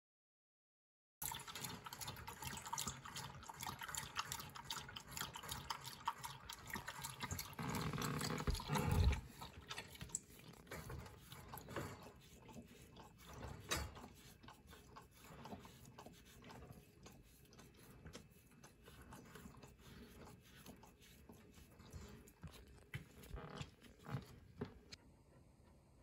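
An Australian Shepherd lapping water from a stainless steel bowl in quick, splashy laps, starting about a second in and loudest around eight to nine seconds in. From about ten seconds in come quieter, rapid clicking licks as the dog licks its empty food bowl.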